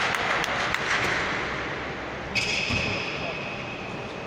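Sounds of a basketball game in a sports hall: voices and ball bounces echoing. About halfway through, a steady high-pitched tone with overtones sets in.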